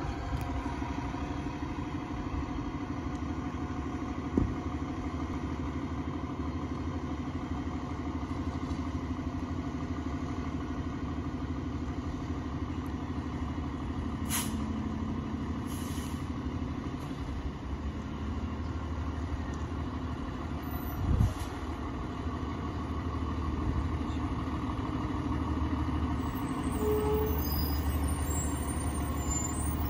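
Fire engine's diesel engine idling steadily, getting somewhat louder near the end as the truck pulls out. A sharp knock sounds about four seconds in and a louder thump about twenty-one seconds in.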